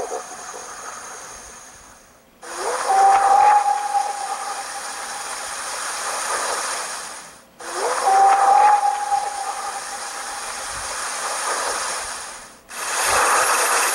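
Hissy field recording played back in two clips that each start abruptly. Each opens with a short call that rises and then holds one pitch for about a second before fading, over steady hiss. Faint low thuds come near the end.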